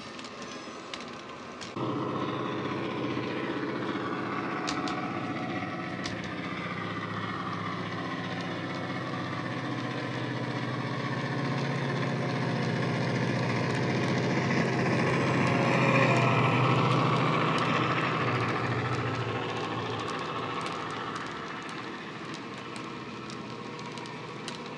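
Model Class 68 diesel locomotive's sound decoder (JMC sound file on an ESU LokSound 5, through an EM2 speaker) playing a steady deep diesel engine under power. It jumps in level about two seconds in, grows louder as the locomotive comes past about two-thirds of the way through, then fades. Light clicking from the wagon wheels on the track near the start and end.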